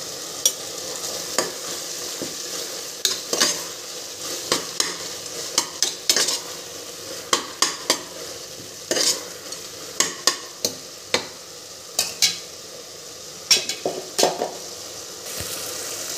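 Chopped tomatoes, onions and peas frying in oil in a pressure cooker with a steady sizzle. A spoon stirring the mixture scrapes and knocks against the pot in short sharp strokes, about one or two a second.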